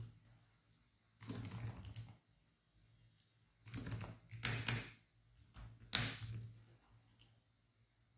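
Typing on a computer keyboard in three quick runs of keystrokes: about a second in, around four to five seconds, and again near six seconds.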